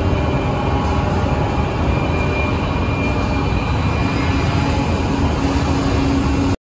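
Steady hum and drone of woodworking factory machinery, with a faint high whine in the middle; it cuts off abruptly at the end.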